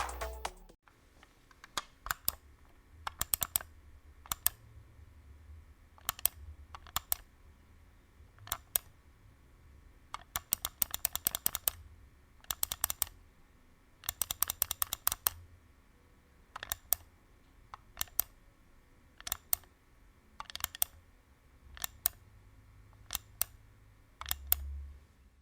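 Gaming keyboard keys and mouse buttons clicking: scattered single presses and pairs, broken by a few short rapid runs of keystrokes.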